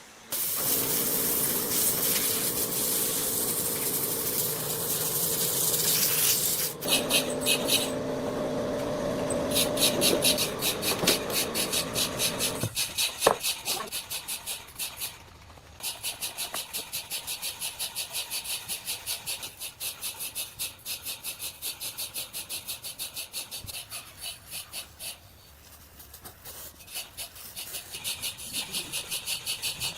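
Woodworking tool sounds: a steady machine noise for about the first seven seconds, then repeated back-and-forth scraping strokes at about three a second through the rest.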